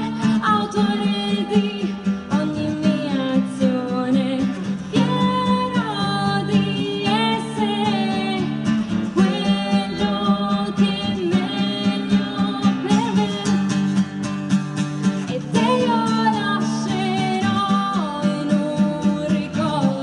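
A woman singing a song over a strummed acoustic guitar, in a live performance through microphones.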